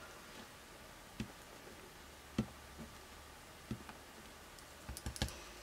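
Scattered light plastic clicks and taps from a roller date stamp and craft supplies being handled on a cutting mat. There is a single knock about a second in, another a second later, two more, then a quick cluster of clicks near the end.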